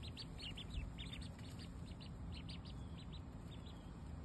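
Ducklings peeping: a continuous stream of short, high peeps, several a second.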